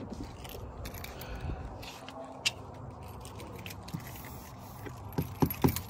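Handling sounds of a car door being opened and its inner door trim touched: faint scrapes over a low steady background, a sharp click about two and a half seconds in, and a few louder clicks near the end.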